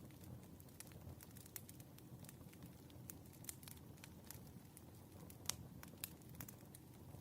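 Wood fire crackling softly: irregular sharp pops and snaps over a low, steady rumble of burning logs, with a louder pop about five and a half seconds in.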